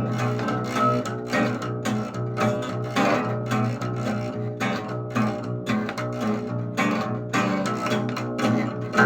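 Music with quickly plucked string notes over a steady low bass, with no voice standing out.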